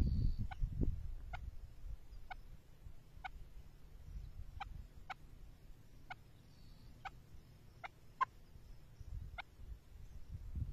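Chukar partridge giving short, sharp single call notes, about one a second at an uneven pace, with one louder note near the end.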